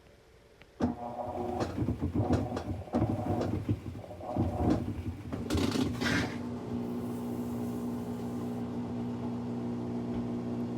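Maytag top-load washer running with a failed transmission (gear case): about a second in, irregular knocking and clattering starts and lasts several seconds. It then settles into a steady mechanical hum, the weird noise of a bad transmission whose shaft has broken.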